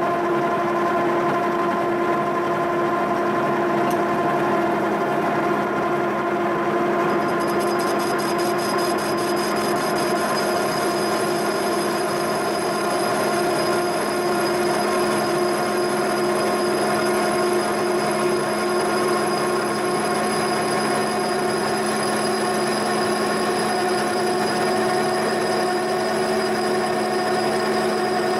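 Milling machine spindle turning a boring bar that cuts the worn exhaust-slip-joint bore of a John Deere 8000-series exhaust manifold, running steadily. A high-pitched ring joins about seven seconds in. This is the last pass, opening the bore out to sound metal so a sleeve can be fitted.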